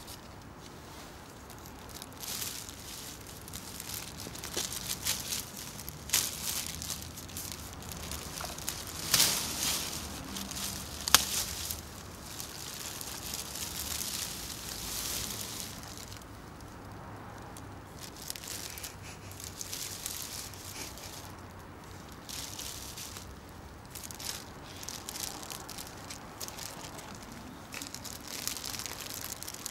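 Plastic bags and rubbish crinkling and rustling as they are handled, with irregular sharper crackles; the loudest come about nine and eleven seconds in.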